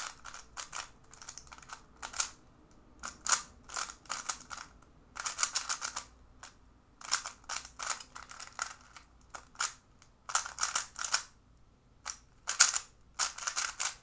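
A stickerless 3x3 speedcube being turned fast by hand: rapid bursts of plastic clicking and clacking from the layer turns, broken by short pauses.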